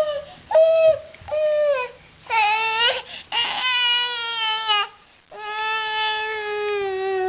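Baby crying: a run of about six pitched wails, short ones at first, then longer ones; the last lasts about two seconds at a steady pitch.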